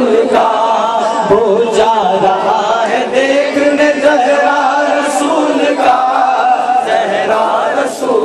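Male voices chanting a Naat, an Urdu devotional poem in praise of the Prophet Muhammad, in long, held melodic lines, with several men's voices singing together.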